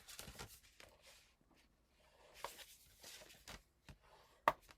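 Cardstock card base being folded along its score line: soft paper rustling and rubbing, with one sharp tap near the end.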